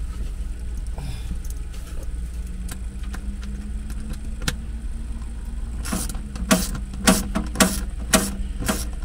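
Hand socket ratchet with a short extension clicking in quick short strokes from about six seconds in, backing out a bolt that holds the inverter down. A steady low hum runs underneath.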